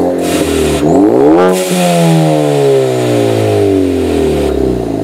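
2015 Ford Focus ST's turbocharged 2.0-litre four-cylinder, heard through a Cobb Stage 3 turbo-back exhaust with catted downpipe, revved at standstill. The revs climb quickly about a second in, then fall slowly back down over the next three seconds, with a hiss over most of the fall.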